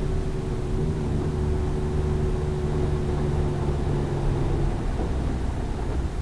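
Suzuki Jimny driving, heard from inside the cabin: a steady low engine and road rumble with an even hum that fades out about three-quarters of the way through.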